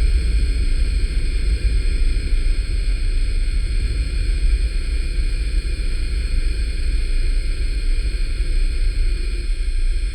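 Multirotor drone's propellers spinning at a steady speed: a high whine made of several fixed tones over a low, fluttering rumble.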